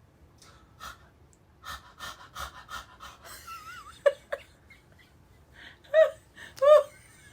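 A man making comic vocal sound effects: a string of short breathy gasps, a wavering whistle, then two short, loud, pitched cries near the end.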